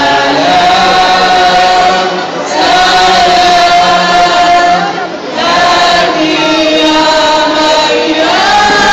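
A crowd of worshippers singing a hymn together, long held notes in phrases of two to three seconds with brief breaks between them and a rising phrase near the end.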